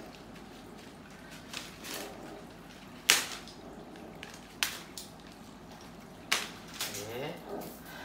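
Artificial plastic monstera leaves rustling as they are handled and tucked into a flower arrangement, with three sharp snaps or clicks about three, four and a half, and six seconds in.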